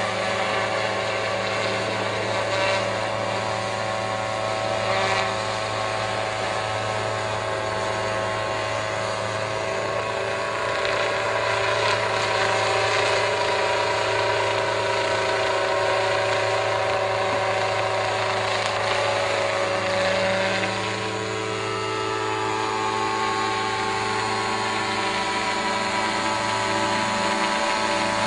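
A motor running steadily, a continuous whine made of several steady tones; it eases briefly about twenty seconds in and then runs on.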